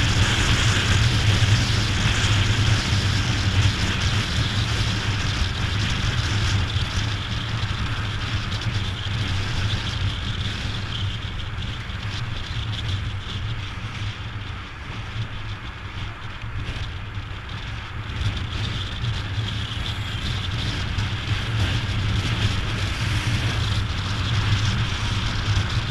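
Wind rushing over a helmet-mounted camera on a Honda Dazzler motorcycle at highway speed, with the low drone of the bike's engine underneath. The noise eases off around the middle and builds again toward the end.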